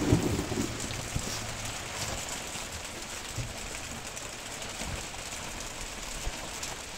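Rain and wind making a steady hiss aboard a small fishing boat in stormy weather, with scattered faint taps of drops.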